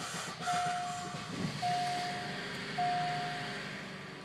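2005 Suzuki Forenza's 2.0-litre four-cylinder engine cranking on the starter, catching about a second and a half in, rising briefly and settling to idle, while a dashboard warning chime beeps three times. It is slow to start, which the owner puts down to a bad fuel pump, fuse or relay.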